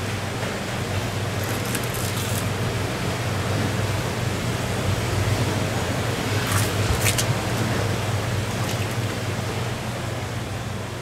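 Steady background hiss with a low hum, typical of fans or refrigeration machinery, with a few brief faint clicks and rustles about two and seven seconds in while a long knife slices through a bluefin tuna loin.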